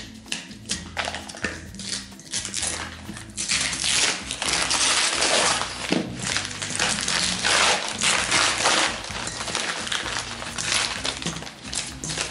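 Newspaper and masking tape being peeled and pulled off a glass globe lampshade. Scattered crinkles at first, then dense, continuous paper crinkling and tearing from about three seconds in.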